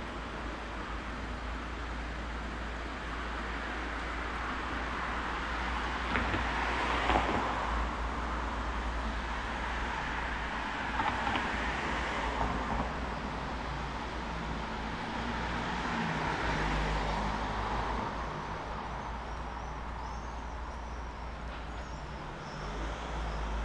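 Street traffic on a rain-wet road: several cars pass one after another, each swelling up and fading, their tyres hissing over a steady background of city noise.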